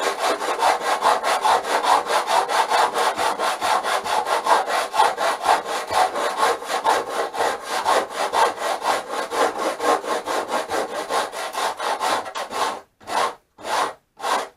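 Hand sanding of balsa sheeting on a model aircraft fuselage, using a block with coarse sandpaper. It is a rapid back-and-forth scraping, several strokes a second, that near the end slows to a few separate strokes with pauses between them. The work is smoothing a glued-in balsa sliver flush.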